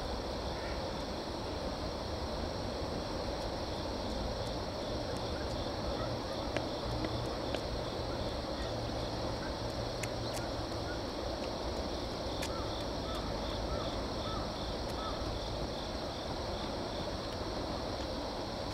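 Riverside outdoor ambience: a steady rush of moving water and wind with a low rumble, insects chirping in a faint pulsing trill, and a short run of faint bird chirps in the middle.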